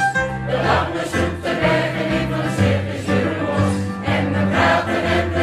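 A choir singing, holding long chords that change every second or so.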